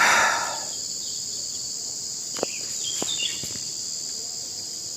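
A steady, high-pitched chorus of forest insects, with a brief noisy burst at the start and a couple of faint clicks about halfway through.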